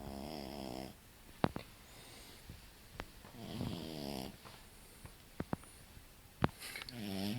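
Young French bulldog snoring in its sleep: three snores about three and a half seconds apart. A few sharp short clicks fall between them.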